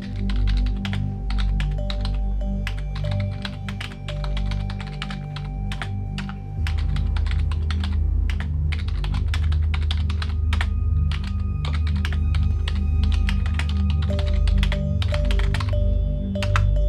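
Fast, irregular typing on a computer keyboard, a rapid stream of key clicks, over background music of low sustained notes whose bass grows louder about six and a half seconds in.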